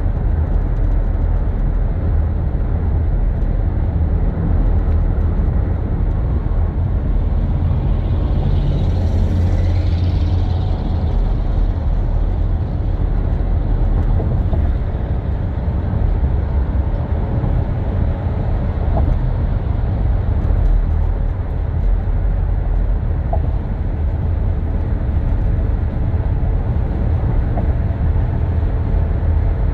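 Car driving at highway speed, heard inside the cabin: a steady low rumble of tyre and road noise, with a brief swell of brighter hiss about nine to eleven seconds in.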